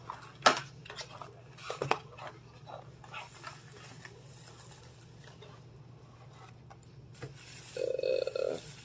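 Cardboard box and plastic packaging being handled: rustling and a few sharp taps and clicks, most of them in the first two seconds, with a short low hum near the end.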